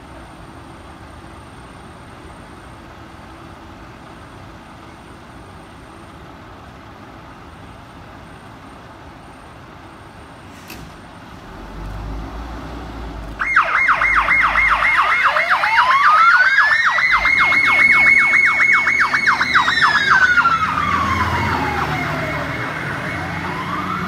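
MFB Pumper 3 fire engine turning out: a low engine rumble that swells a little past halfway as it pulls out. Then its siren comes on loud, a fast warbling yelp laid over a slow wail that rises, holds, falls, and starts to rise again near the end.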